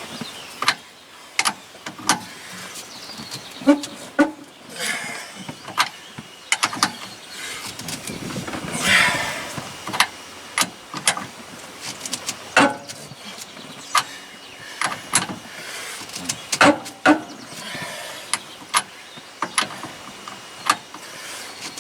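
Hand ratchet and socket clicking and clinking in irregular short strokes, a few a second, as a tight, Loctited nylock nut is worked off the steering shaft of a Polaris RZR, with a brief scrape of metal about nine seconds in.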